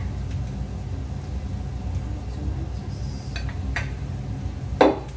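Spatula clicking and scraping against a plate and frying pan as tomato slices are pushed into the pan, with a loud knock near the end, over a steady low hum.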